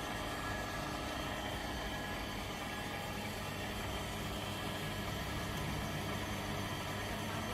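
A machine running steadily with a low hum and a hiss, unchanging throughout.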